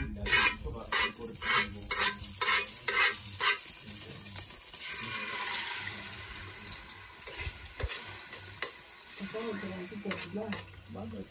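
Spoon beating eggs in a small steel bowl, quick regular strokes about two to three a second, followed about five seconds in by a sizzle of frying in a metal pan over a wood fire.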